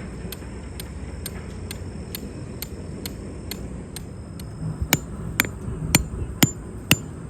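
Hammer blows on metal, the kind made when driving tent pegs. Light, even taps come first, then five harder strikes about twice a second starting about five seconds in, each with a short metallic ring.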